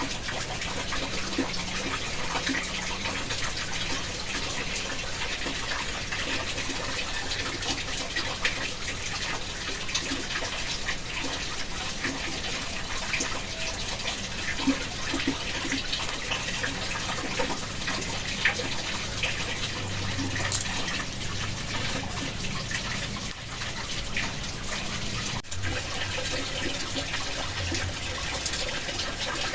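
Steady rushing water with many small drips and ticks scattered through it, typical of heavy rain falling on a shelter.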